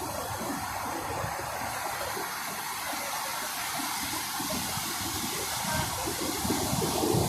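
Big sea waves breaking on the shore: a steady rushing surf noise with uneven low rumbles, a little louder near the end.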